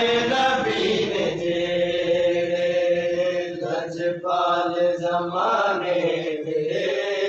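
Voices reciting a noha, a Shia mourning elegy, as a slow chant with long held, drawn-out notes.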